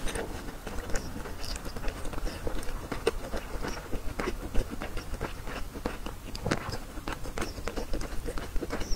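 A person chewing a bite of braised oden egg with the mouth closed: soft, irregular wet mouth clicks and smacks, picked up close on clip-on microphones.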